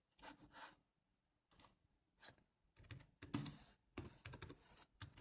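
Faint, irregular clicking and tapping of typing on a computer keyboard, with a quicker run of keystrokes in the second half.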